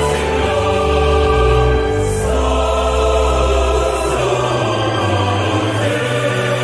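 Choral music: a choir holds long chords over deep, sustained bass notes that shift every second or two.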